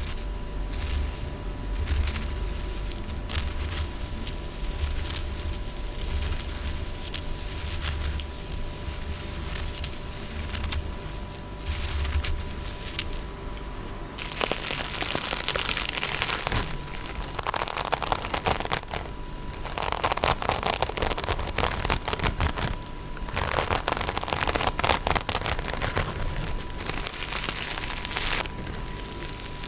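Close-up ASMR tapping and scratching, crackly and crinkly: quick taps with soft low thuds at first, turning about halfway through into denser stretches of scratching with short pauses between them.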